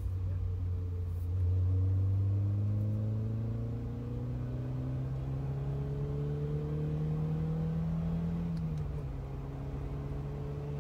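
A 1993 Peugeot 205 1.9 CTI's 1.9-litre four-cylinder engine heard from inside the cabin on the move. Its pitch climbs slowly as the car pulls up through the revs, then drops slightly about nine seconds in and holds steady.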